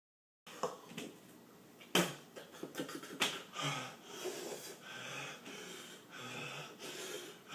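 A man breathing hard, in and out about once a second, from the burn of a very hot chili pepper. Three sharp clicks come in the first few seconds.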